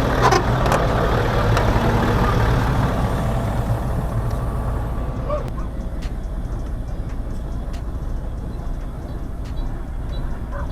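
Heavy truck or construction machine's diesel engine running steadily, with a hiss that dies away about halfway through.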